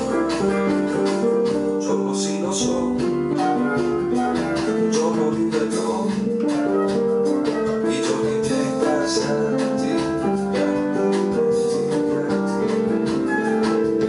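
Instrumental passage of a song played on keyboards: held chords changing about once a second, over light percussion ticks.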